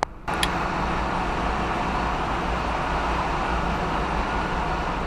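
A click, then loud machinery noise of a ship's engine room starting abruptly about a third of a second in: a steady low hum under an even mechanical din.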